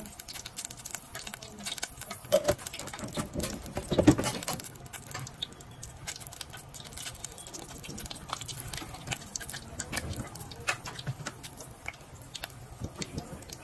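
Hot oil sizzling and crackling steadily around balls of plantain puff puff batter deep-frying in a pot. A couple of louder knocks stand out around two and four seconds in.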